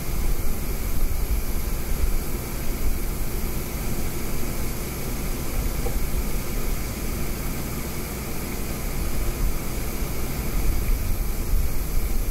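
A steady low rumble under a constant hiss, unchanging throughout.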